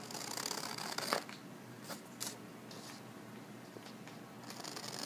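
Scissors cutting through a sheet of paper, with the paper rustling as it is handled. There is a stretch of cutting in the first second that ends in a sharp snip, a couple of clicks around two seconds in, and more cutting near the end.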